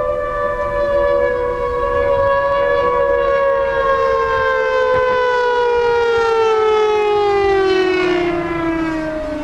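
Dive-bomber siren on a radio-controlled model plane, wailing loudly. The pitch holds for a few seconds, then slowly falls, dropping more steeply near the end.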